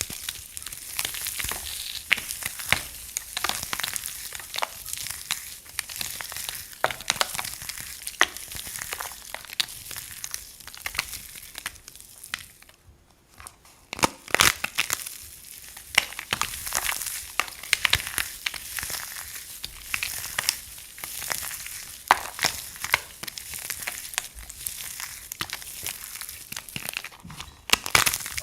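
Dry soap crunching as it is broken up: a dense run of small, sharp cracks and crackles, with a short pause about halfway through.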